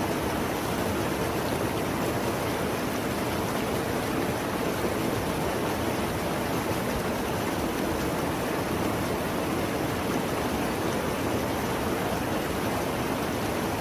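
Mountain river rushing, a steady, unbroken wash of water noise.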